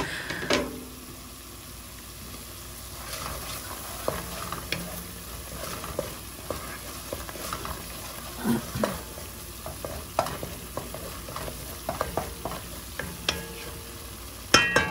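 Sofrito and spices sizzling in a hot pot as they are stirred, with a utensil scraping and knocking against the pot every so often.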